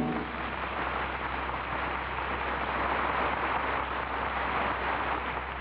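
Steady hiss and crackle of a transcription disc's surface noise, with a low mains hum underneath, in the silent gap of the recording. The tail of an orchestral chord dies away just at the start.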